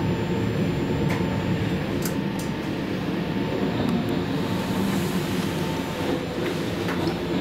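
VR Sm4 electric multiple unit heard from inside the carriage while moving slowly: a steady rumble of wheels and running gear with a faint steady whine that fades about six seconds in, and a few sharp clicks.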